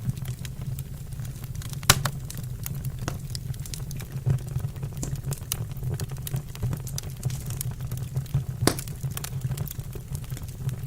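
Wood fire crackling in a fireplace: a steady low rumble with frequent small pops. Two louder snaps come about two seconds in and again near the end.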